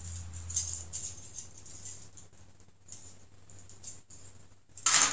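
Small metal swing-top bottle-cap parts (wire bails and collars) clinking lightly as they are handled, with a louder clatter near the end.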